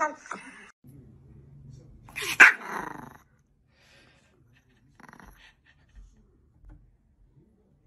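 Small dog growling low, then one sharp bark about two and a half seconds in, followed by a few faint taps.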